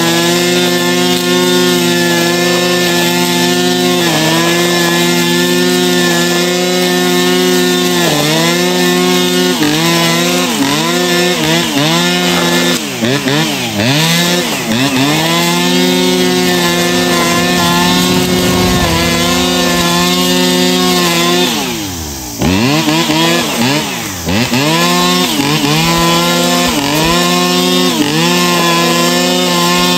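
Two-stroke brushcutter with a nylon-cord head running at high revs. Its pitch dips briefly every second or two as the cord loads up in the grass, then recovers. About 22 seconds in it falls almost to idle and revs back up.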